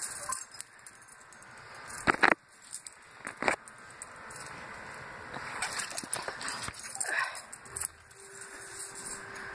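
Small dog playing with a plush ball on carpet, with two short, loud sharp sounds about two and three and a half seconds in.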